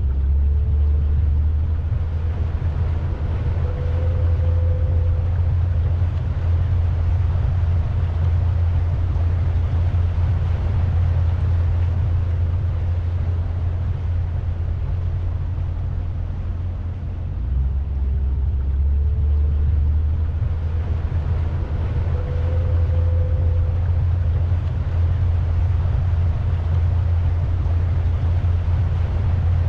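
Steady low rumble of a pontoon boat under way, its motor and the rush of air and water heavy in the bass.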